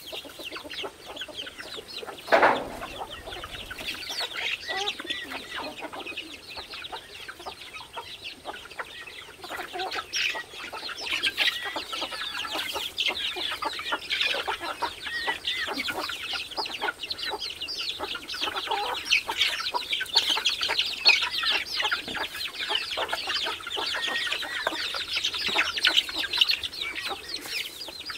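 A flock of hens and young chickens clucking continuously while they feed on scattered grain. The clucking grows busier and louder about halfway through, and there is one louder sound about two seconds in.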